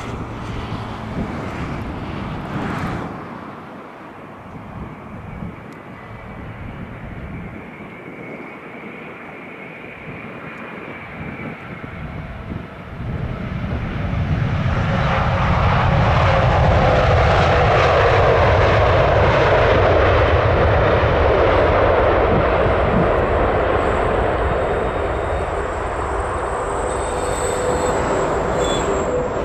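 Boeing 787-9 airliner's jet engines passing close by. The noise grows sharply about halfway in and is loudest around two-thirds through, with a whine that falls in pitch as the aircraft goes past, then eases off a little near the end.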